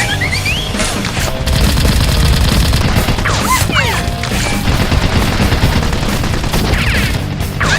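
Rapid automatic-gunfire sound effect over background music, with a few short whooshing glide effects.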